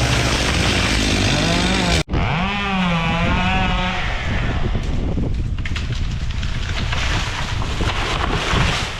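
Two-stroke chainsaw engine running, its pitch wavering up and down as it works. It breaks off sharply about two seconds in and picks up again, then gives way to a rougher, noisier running sound.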